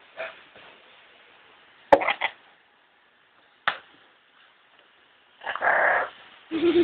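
Amazon parrot close to the microphone making short raspy sounds and two sharp clicks, then a longer raspy sound about five and a half seconds in.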